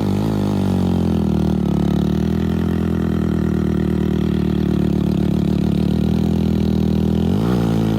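Heavy diesel engine labouring at low revs under load, with a steady pulsing beat, as a machine climbs a steep earth slope. The revs rise near the end.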